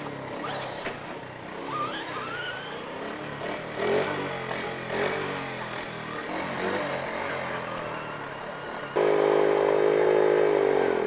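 Small engine of a child's quad bike running with short rising revs. About nine seconds in it jumps to a much louder, steady high-revving note as the quad pulls away.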